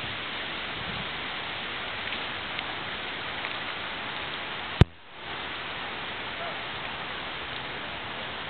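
Steady, even hiss of stormy weather outdoors, the rushing noise of a hurricane's tail end. About five seconds in, a sharp click is followed by a brief dip in the sound.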